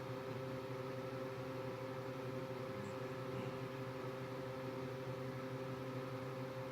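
A steady mechanical hum with several fixed low tones, like a household appliance or fan running, unchanging throughout.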